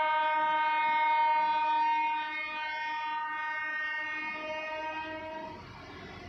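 Air horn of a railway track maintenance machine sounding one long, steady blast. It drops in level about two seconds in and stops near the end.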